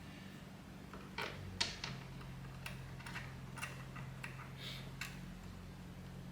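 Irregular light clicks and knocks, about ten of them, from parts and hand tools being handled during steering-wheel installation work, over a steady low hum.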